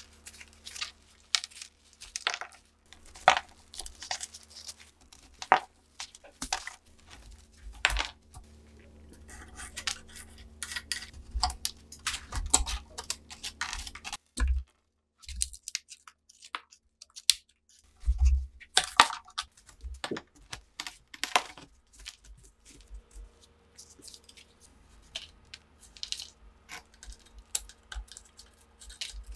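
A metal pick scraping and prying dried, caked mud off a rusted submachine gun, with crumbs of dirt falling onto the work surface: a long run of short scratches and sharp little clicks, dropping quiet for a few seconds about halfway through.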